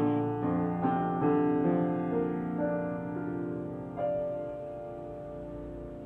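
Piano playing the closing bars of an art song: a run of chords over the first two or three seconds, then a final chord struck about four seconds in and left to fade.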